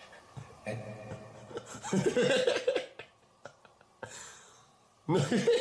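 Short vocal sounds and exclamations from a man, without clear words, loudest about two to three seconds in.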